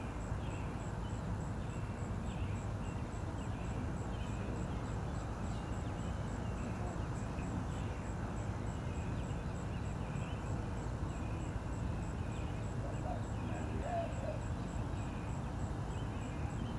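Steady low outdoor rumble with short bird chirps repeating over it throughout.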